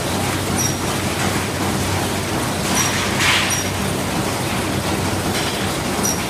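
Ham sausage machine running: a steady mechanical drone with a low hum. Pairs of short high-pitched chirps come three times, and there is a short hiss about three seconds in.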